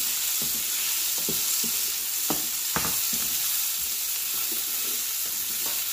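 Diced red peppers, sausage and bacon sizzling steadily in olive oil in an electric skillet, stirred with a silicone spatula whose strokes scrape and knock against the pan several times in the first three seconds and once near the end.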